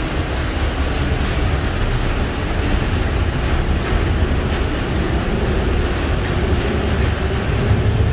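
Steady city traffic rumble rising from the busy road below, with a low hum slowly rising in pitch and a few short high squeaks about three seconds apart.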